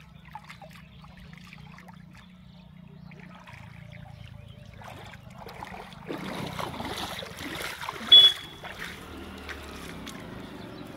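Water trickling and splashing as a wet cast net is gathered up and lifted out of shallow water, with wading steps, busier from about six seconds in. A brief sharp high chirp about eight seconds in is the loudest sound.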